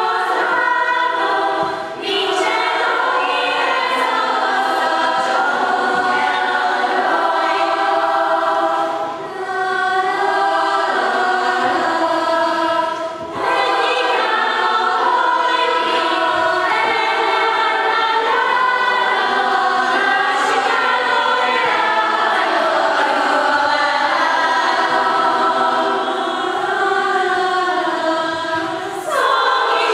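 Children's choir singing, with a few brief breaks between phrases.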